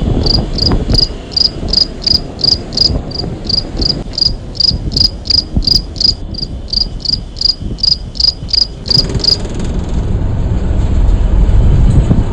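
An insect, cricket-like, chirping in an even series of short high-pitched pulses, about three a second, that stops abruptly about nine seconds in. Beneath it is a low rumble that grows louder near the end.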